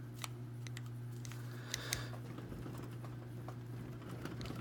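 A few small sharp clicks and light metal ticking from a screwdriver turning a very tight screw out of a hardened steel padlock body, over a steady low hum.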